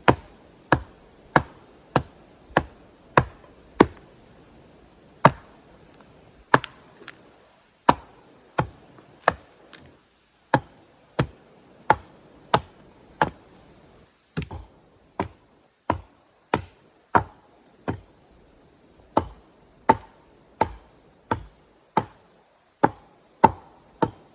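Axe chopping into a log to hew a deeper flat for the next log to rest on: steady, sharp strokes about every two-thirds of a second, with a few short pauses.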